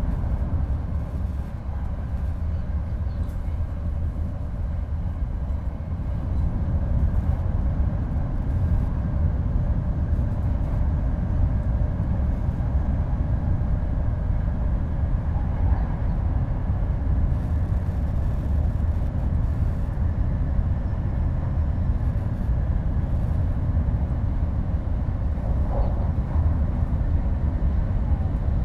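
Shinkansen train running, heard inside a passenger car: a steady low rumble with a fainter hiss above it, a little louder from about six seconds in.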